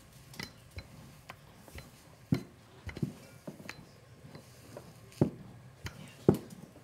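Rolling pin rolling out dough on a floured, cloth-covered table, with irregular knocks and clinks as the pin and its handles bump and rattle; the loudest knocks come a little over two seconds in and twice near the end.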